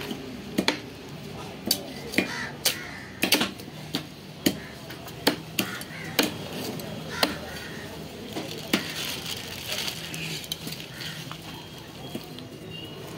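Large knife cutting a trevally on a wooden chopping block: irregular sharp taps and knocks of the blade against the wood, roughly one or two a second, with scraping between them.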